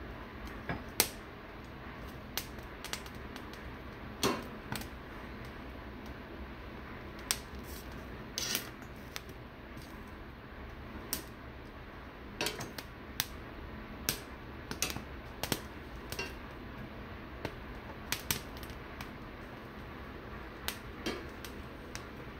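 Poblano peppers charring directly over a gas burner flame: a steady hiss with irregular sharp crackles and pops as the skins blister and blacken.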